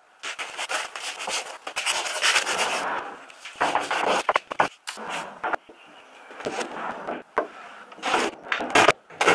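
Sandpaper rubbed by hand along plywood edges in scraping strokes, with a few sharp wooden knocks.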